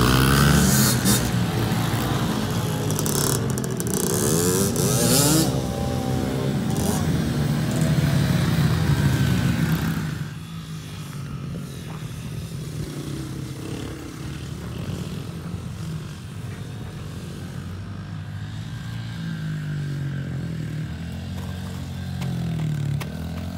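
Engine of a child's small dirt bike revving up and down as it rides around. About ten seconds in it drops suddenly to a quieter, more distant sound, which swells again near the end.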